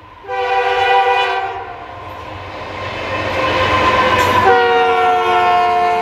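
Canadian Pacific freight locomotive's fouled air horn, its chord sounding off and out of tune, blowing twice. The first blast fades out after about a second and a half. The locomotive's passing rumble builds, and then a second, louder blast starts about four and a half seconds in and holds, its pitch sagging slightly.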